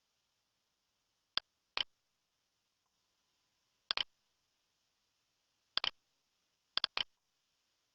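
Sharp clicks, mostly in quick pairs, every one to two seconds over a faint hiss.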